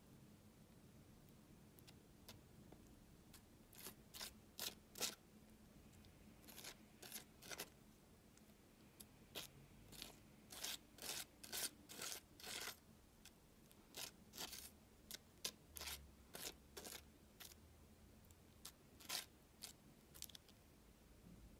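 Plastic palette knife scraping and smearing thick paint on a hard surface, folding yellow and dark blue together into green. Short, crisp, irregular strokes, few at first and coming thick and fast from about four seconds in.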